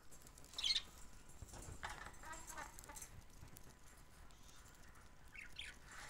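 Budgerigars chirping faintly and sparsely while feeding: a short high chirp just under a second in, soft chatter around two to three seconds, and two quick chirps near the end.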